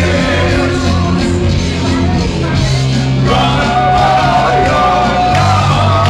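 Men singing into handheld microphones over loud backing music with a steady bass line, holding a long note through the middle.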